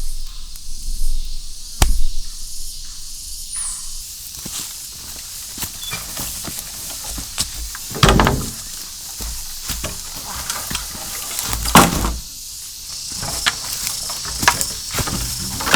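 Forest insects chirring steadily in a high-pitched chorus, with a few sharp knocks and thuds at intervals.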